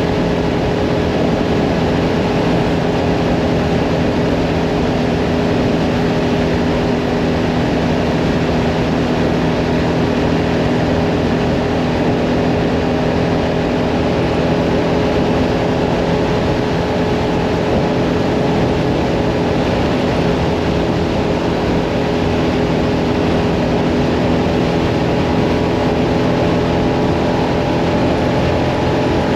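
Mirage 650 motorcycle engine running at a steady, unchanging pitch while cruising at constant speed, under a steady rush of wind and road noise.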